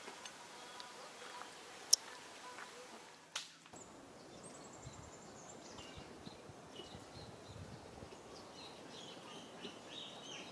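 Faint outdoor ambience with a single sharp click about two seconds in, then thin high-pitched chirps and a short trill over a low hiss for the rest.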